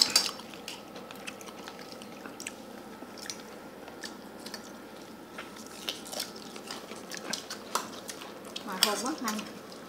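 Quiet eating sounds: a metal spoon lightly clicking against a steel bowl, and chewing. A voice is heard briefly near the end.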